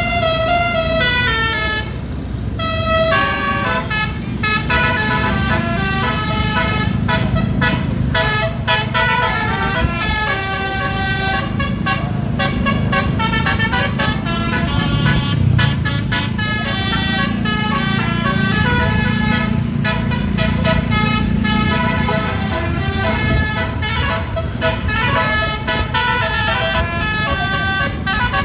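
Basuri telolet musical bus horn playing a quick melody of changing notes, over the steady low rumble of an idling engine.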